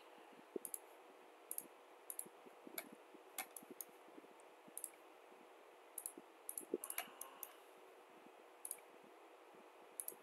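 Computer mouse clicking at irregular intervals, some clicks coming in quick pairs, while sketch elements are selected and dimension constraints placed. A faint steady hiss lies underneath.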